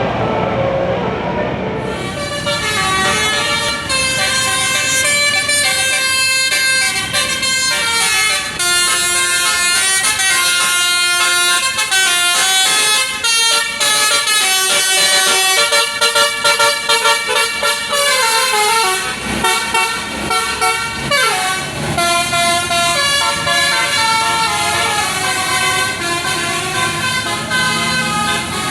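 Bus 'telolet basuri' musical air horn playing a melody of quick, changing notes, starting about two seconds in over road noise. About two-thirds of the way through, one note slides down in pitch.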